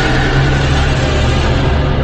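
Ominous, dramatic music sound effect: a loud, dense, sustained sound over a deep, steady hum.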